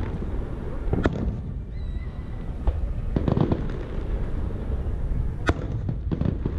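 Fireworks display: aerial shells bursting in a string of sharp bangs every second or two, a couple of them with a quick run of crackles, over a steady low rumble.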